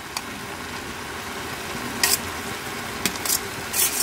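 Sugar syrup boiling hard in a metal pot on full flame, a steady hiss and bubbling, as drained parboiled rice is tipped in from a strainer. A few short clinks sound about two seconds in and again near the end.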